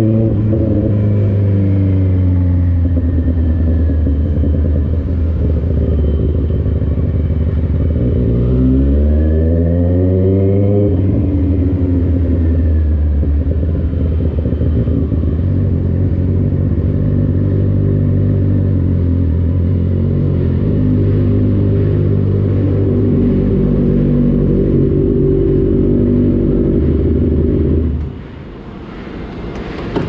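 Benelli SRK 600 inline-four engine with an aftermarket exhaust, ridden at low speed. The engine note falls as the bike slows, rises and falls once in a short rev about ten seconds in, then runs low and steady. The engine sound stops about two seconds before the end.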